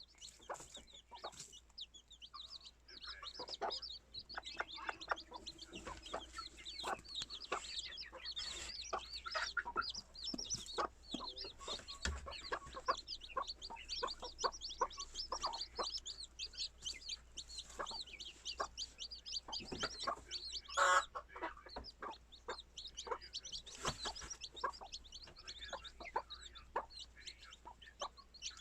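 Young poultry chicks peeping and chirping busily, with some clucking and a louder call about two-thirds of the way through.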